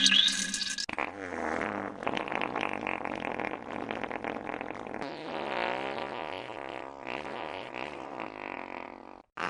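Fart sound effects: a short loud blast, then one long, drawn-out wavering fart lasting about eight seconds that cuts off suddenly near the end.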